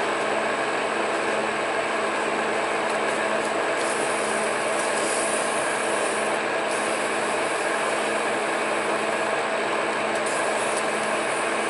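Monarch metal lathe running with a steady hum, and a higher hiss that comes in from about four to seven seconds in and again briefly near the end.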